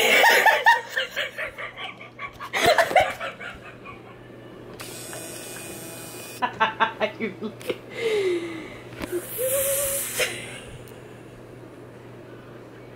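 People laughing in several bursts, with a few wordless drawn-out vocal sounds in between.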